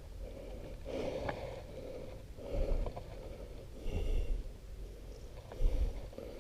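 A man breathing hard, short noisy breaths about every second and a half, out of breath after landing a big fish, with low rumbling thumps on the microphone.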